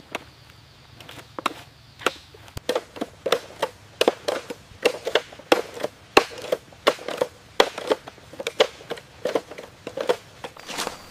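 A series of sharp crunching knocks, a few at first and then about two or three a second from a couple of seconds in.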